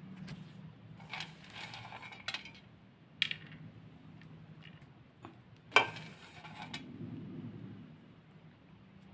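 Light taps and clinks on a ceramic plate as chopped almonds and grated coconut are sprinkled over by hand, with soft rustling about a second in and the sharpest clink near the six-second mark.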